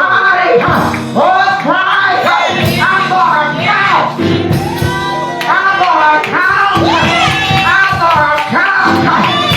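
Singing voices with instrumental backing music.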